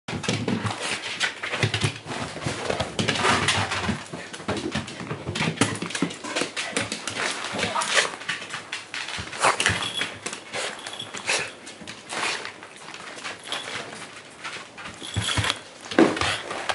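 Shiba Inu dogs excitedly greeting their owner at close range: short high whines among many small knocks and scuffles.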